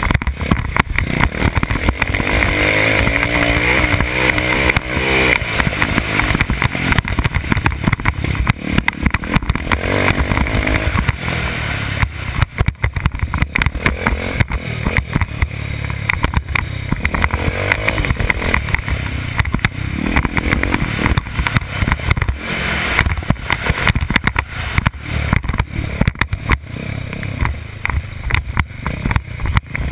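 Motocross dirt bike engine, heard from on the bike, revving up and down hard as it is ridden over a dirt track, with a rising run of revs a couple of seconds in.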